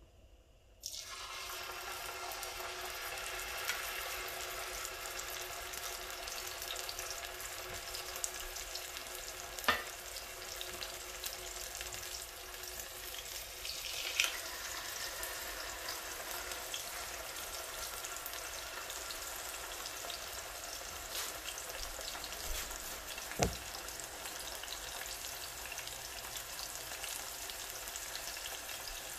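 Butterflied milkfish frying in hot oil in a pan: a steady sizzle that starts about a second in as the fish goes into the oil, with a few sharp clicks along the way.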